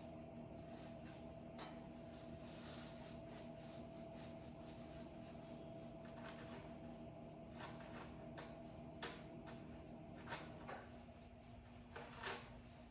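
Faint, scattered clicks and light knocks over a steady hum, part of which cuts out about ten and a half seconds in.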